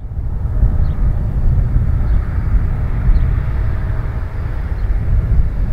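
Widebody twin-jet airliner on final approach, its engines a steady low rumble with a faint whine over it, heard in open air with an uneven low rumble from wind on the microphone.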